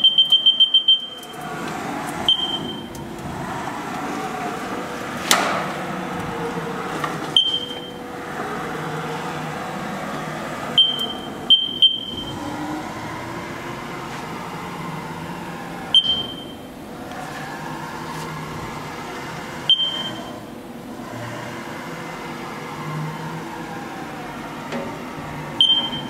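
Haas TM-3 milling machine's axis drive moving the table back and forth at a raised feed rate: a steady servo whine that rises and falls with each run, broken by short high beeps every few seconds. There is a quick string of beeps at the start and one sharp click about five seconds in.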